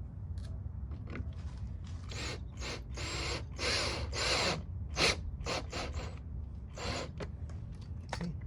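A screw being driven in to fasten an aftermarket front lip spoiler to the bumper: a string of about a dozen short, irregular mechanical bursts, a few of them longer.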